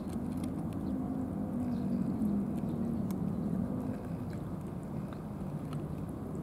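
A low motor drone with a slightly wavering pitch, a little louder in the first few seconds, over faint small clicks from cats chewing wet food.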